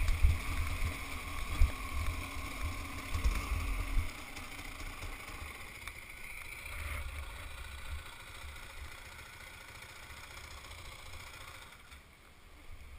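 Motorcycle engine running with heavy wind rumble on the microphone for about the first four seconds, then quieter, steadier running that fades off in the second half.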